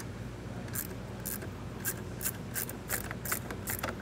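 Hand ratchet with a 10 mm socket clicking in short bursts as it loosens the nut on a truck's battery terminal post. The clicks start about a second in and come irregularly, two or three bursts a second.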